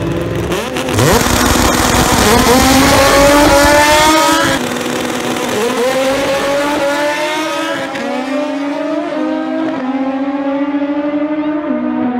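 Two naturally aspirated Honda drag cars launching at full throttle about a second in, engines revving hard. The pitch climbs steeply and drops back at each of several upshifts as they pull away down the strip.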